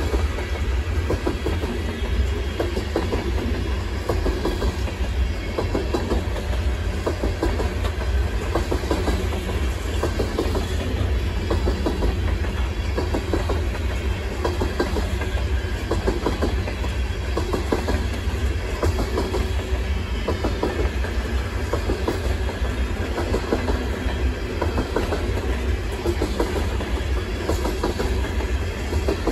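Freight train of coal hopper cars rolling past: a steady low rumble of steel wheels on rail, with a regular clickety-clack as the wheels pass over rail joints.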